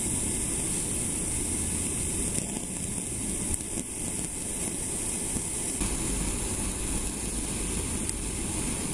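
Handheld gas torch flame hissing steadily as it heats a pile of vermiculite.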